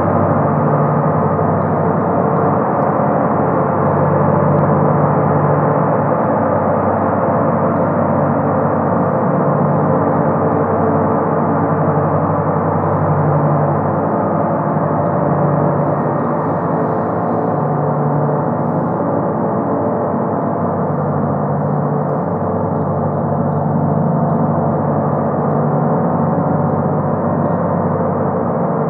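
Large flat gong on a round stand played continuously: a dense, steady drone of many overlapping tones that swells gently, with no separate strikes standing out.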